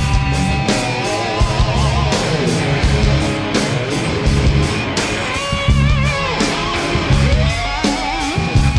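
Rock music track with a guitar lead playing sustained, bending notes with vibrato over a steady beat, ending in a long rising slide.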